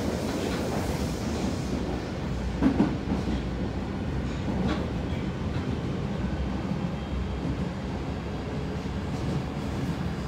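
Osaka Metro 30000-series subway train running between stations, heard from inside the passenger car: a steady rumble of wheels on rail, with a couple of short knocks about three and five seconds in.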